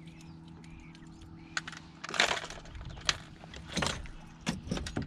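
Scattered clicks and light metallic jangling of fishing tackle being handled in a kayak's cockpit: a quick cluster about two seconds in, single clicks after it, and several more near the end. A faint steady low hum sits under the first half.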